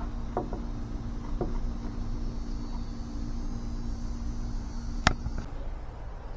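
Electric power tool running steadily while shaping the edges of a plywood body, with a steady hum; a sharp click comes about five seconds in and the motor cuts off just after.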